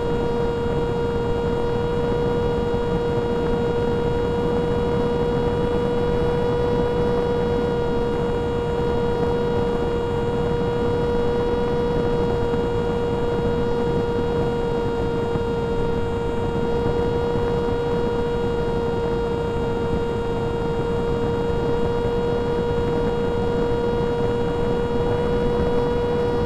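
Electric pusher motor and propeller of an FT Versa Wing flying wing heard from its onboard camera, a steady whine at constant cruise throttle, with wind rushing over the airframe.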